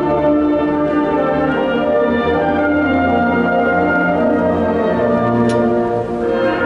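A massed wind band of several thousand players performing: held chords with brass to the fore over a low bass line, with a short lift between phrases about six seconds in.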